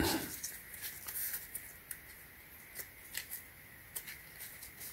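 Faint scattered rustles and light taps of fingers rubbing and handling a foam shoe over a sheet of paper, a little louder at the very start.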